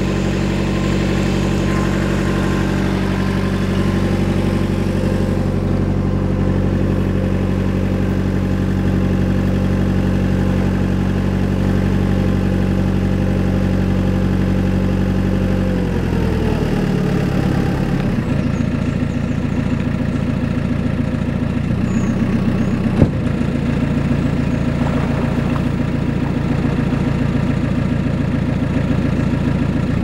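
Narrowboat's engine running steadily under way, then throttled back about halfway through, its note falling to a slower idle. A single sharp knock a few seconds later.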